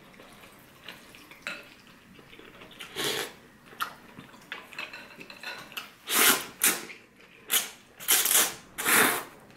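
Chopsticks and a ceramic spoon clicking faintly against a porcelain bowl, then ramen noodles slurped loudly in about five quick, breathy pulls over the last few seconds.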